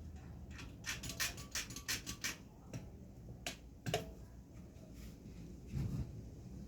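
A quick run of sharp clicks, about five a second for over a second, then a few scattered clicks and knocks and a dull thump near the end.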